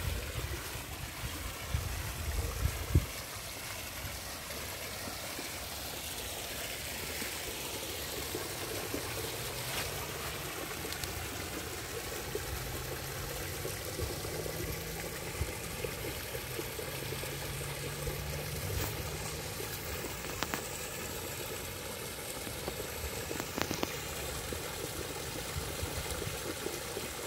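Steady trickle of water running over stones in a shallow, rock-lined stream, fed by a small rock waterfall. A few low thumps sound in the first three seconds, and a faint low hum comes and goes in the middle.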